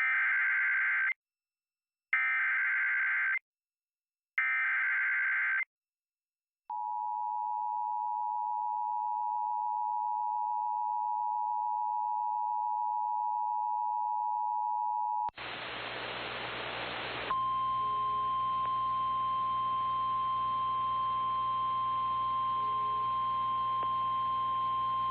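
Emergency Alert System tones: three short warbling data squawks about a second apart (the SAME header), then the two-tone EAS attention signal held steadily for about eight seconds. After a moment of radio static, a single steady tone plays over hiss: the NOAA Weather Radio warning alarm tone.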